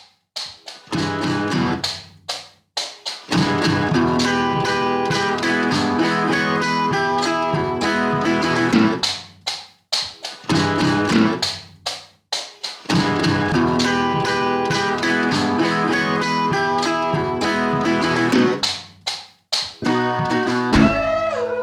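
Background music led by a plucked guitar, with several short pauses between phrases.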